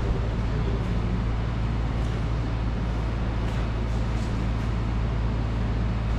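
Steady low hum and hiss of background noise, with a few faint soft knocks.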